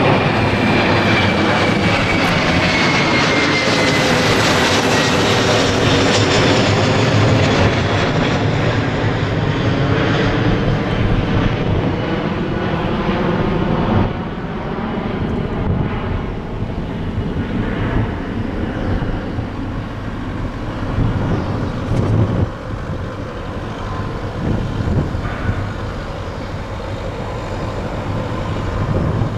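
Airbus A330-300 airliner's twin General Electric CF6 turbofans at climb power, passing overhead and climbing away just after takeoff: a loud, continuous jet roar with a whine that falls in pitch over the first few seconds as the jet goes by, the roar easing in level about halfway through.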